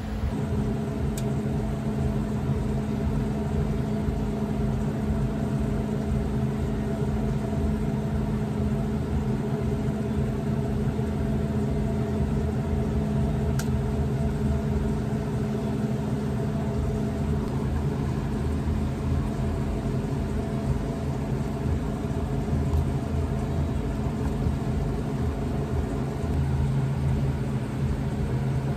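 A steady mechanical hum, like a running appliance, holding a constant low drone with several fixed tones and no change in pitch or level.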